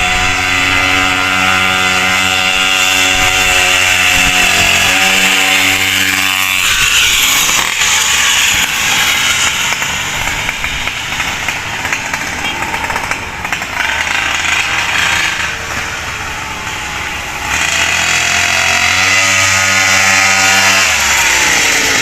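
The small two-stroke engine of a 49cc stand-up scooter running through a tuned expansion pipe with no arrester fitted. It holds a steady note for about six seconds, turns raspier with rising and falling pitch through the middle, and settles back to a steady note near the end.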